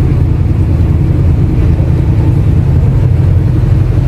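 Motor tour boat's engine running with a steady, loud low rumble.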